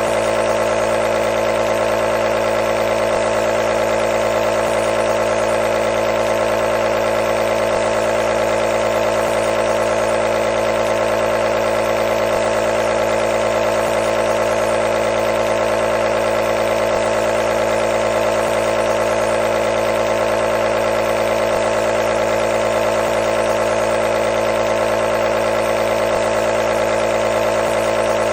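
Nebulizer compressor motor running with a steady, unchanging hum.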